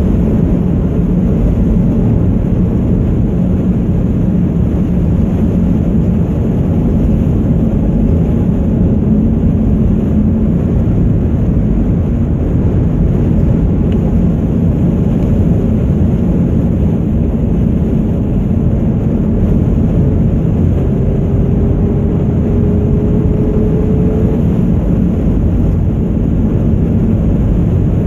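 Steady road noise inside a moving car at cruising speed: a continuous low rumble of engine and tyres. A faint whine rises slightly about three-quarters of the way through.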